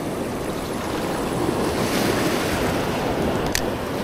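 Ocean surf washing up the sand around the feet in a steady rush, with wind buffeting the microphone. A single short click near the end.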